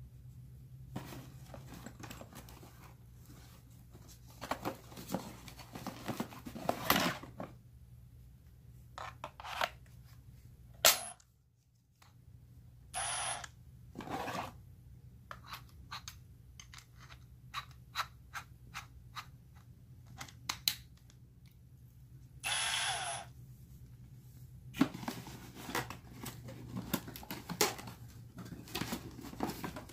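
Hands unpacking and handling a cordless drill kit: cardboard and bag material rustling, with many sharp clicks and knocks of plastic parts and a few short louder bursts.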